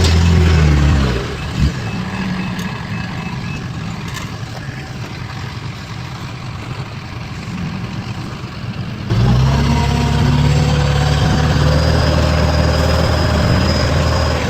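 Heavy construction machinery engines running. A faint, evenly pulsed beeping is heard from about two to four seconds in. About nine seconds in, the sound switches abruptly to a louder, steady engine drone.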